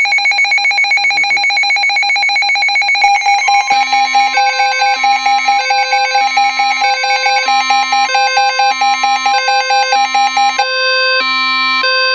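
Weather alert receiver sounding its warning alarm: a loud, rapidly pulsing electronic beep, then a high-low alternating two-tone alarm, with a steady tone added about three and a half seconds in that drops out near the end. It signals an incoming weather warning, here a flash flood warning.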